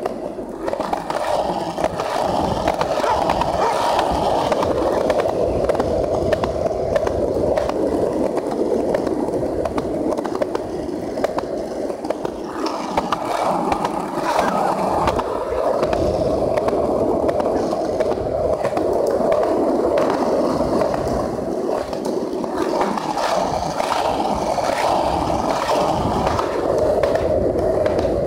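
Skateboard wheels rolling steadily over a concrete sidewalk, a continuous rumble with light clicks as the wheels cross pavement joints and grit.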